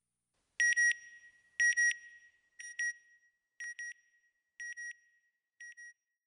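Electronic beeping sound effect: six double beeps, one pair about every second, each pair fainter than the one before.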